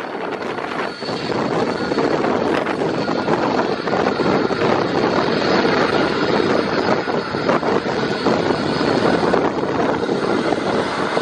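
Boeing 767-300's twin jet engines running at taxi power as the airliner rolls past close by: a steady rush with a faint high whine. The sound grows over the first two seconds, then holds.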